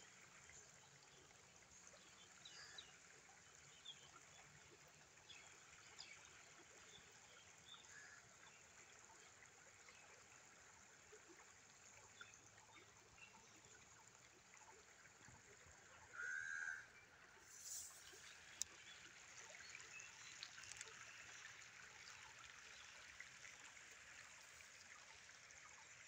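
Shallow rocky stream trickling faintly over stones: a steady soft rush with small ticks of water through it. A short clear note sounds about two-thirds of the way through, followed by a single sharp click.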